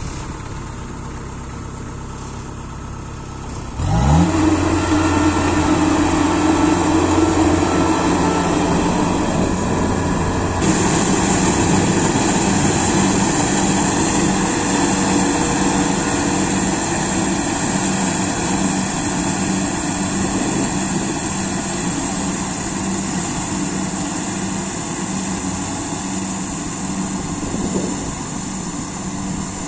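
Kubota Harvesking DC-68G combine harvester's diesel engine idling, then revving up sharply about four seconds in. It then runs steadily at high speed while the machine cuts and threshes rice, with a brighter hiss added about ten seconds in.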